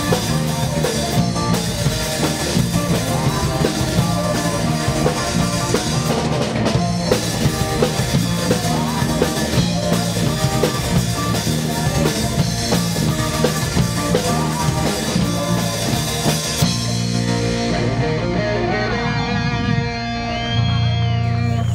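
Live rock band playing: electric guitars, bass, drum kit, keyboard and singing. About 17 s in the drums and cymbals drop away and the band holds a long final chord to close the song.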